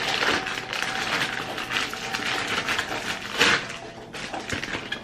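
Rustling and crinkling with scattered small clicks from a packaged hair bundle being handled, with a louder crackle about three and a half seconds in.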